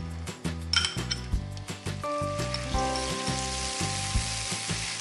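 Butter sizzling as it melts in a hot frying pan of oil, stirred with a wooden spoon. A few clicks and knocks come first as the butter is spooned out of a glass bowl, and the sizzle sets in steadily about two seconds in.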